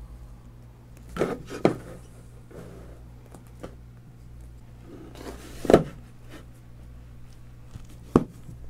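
Books and metal-plated bookends being handled and set in place on a melamine tabletop: four separate knocks, the loudest a little past halfway.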